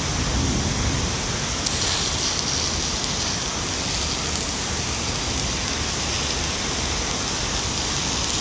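Shielded metal arc (stick) welding on carbon steel pipe: the electrode's arc is struck about two seconds in and then burns with a steady crackling hiss over a constant background hiss.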